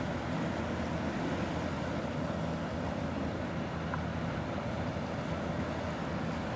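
Steady low engine drone of a ship under way, with wind noise on the microphone and the wash of water.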